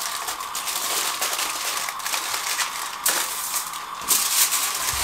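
Aluminium foil crinkling and crackling as it is folded and pressed by hand into a wrapped parcel, with a louder stretch of crackling about four seconds in.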